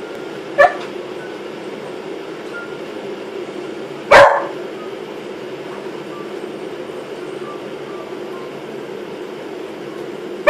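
A beagle barking in short, sharp barks, worked up over a brush: a brief bark about half a second in, a loud one about four seconds in, and another at the very end, over a steady background hum.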